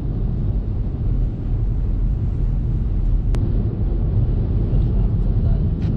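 Small hire car on the move: a steady low rumble of road and engine noise, with one brief sharp click a little past three seconds in.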